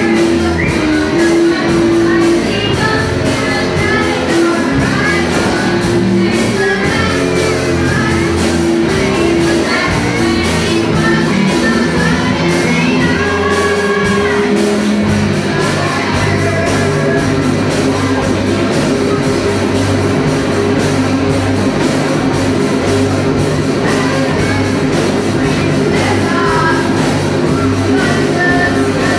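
Live rock band playing: drums and cymbals, electric guitar and bass guitar, with a sung vocal. The bass part changes to a new pattern about halfway through.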